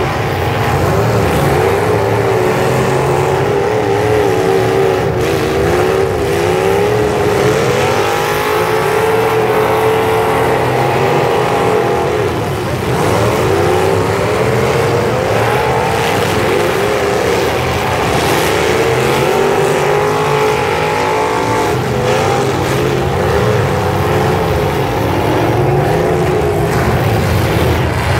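Engines of several full-size demolition derby cars revving together in a loud, continuous din, their pitches rising and falling over one another.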